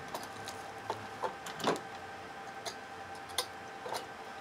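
Scattered light clicks and plastic crinkles as a Cadillac CUE touchscreen assembly in its protective plastic film is handled, about six ticks over four seconds, the sharpest a little under two seconds in. A faint steady hum lies underneath.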